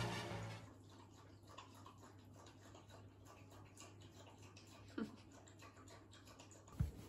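Background music fading out, then a Pomeranian panting softly and tiredly. A short falling squeak comes about five seconds in, and a brief low thump near the end.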